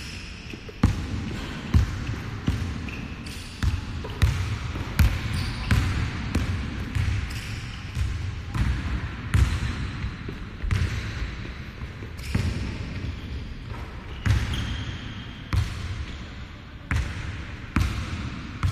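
Basketball sneakers striking the hardwood court floor as a player runs and steps through drills: sharp, irregular thuds about once a second, a few with a short squeak.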